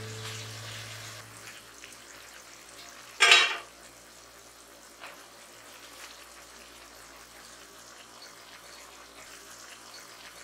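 Pork frying in a pan with a faint, steady sizzle while it is stirred with a spatula; a brief loud burst of noise about three seconds in. Background guitar music fades out in the first second or two.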